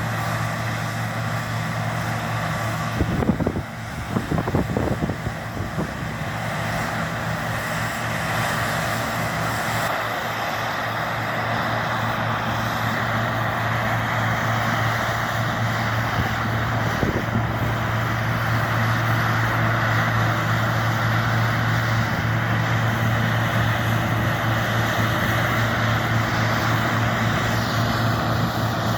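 John Deere T670i combine harvester running steadily as it cuts, a constant low engine hum under the rushing noise of the header and threshing gear, growing slightly louder. A few low thuds about three to five seconds in.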